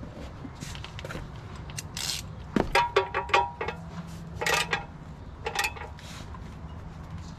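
Ratchet wrench clicking and metal clinking in a few short bursts, some clinks ringing briefly, as a drain plug is run back in and tightened on the underside of a Kubota mini excavator after the oil has drained.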